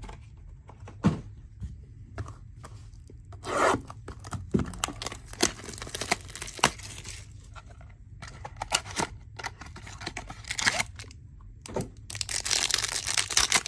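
Cellophane and card-box packaging being torn and crinkled by hand as a trading-card hobby box is opened, among scattered clicks and taps of handling, with a longer stretch of tearing near the end.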